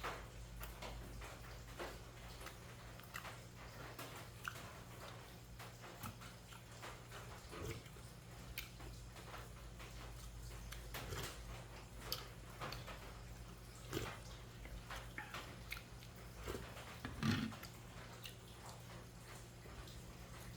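A person eating: scattered mouth smacks and chewing clicks, with a few louder, lower smacks or slurps, the loudest about three quarters of the way through, over a faint steady hum.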